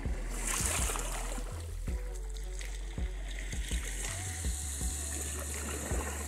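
Wind buffeting the phone's microphone, an uneven low rumble and hiss, with faint voices in the background.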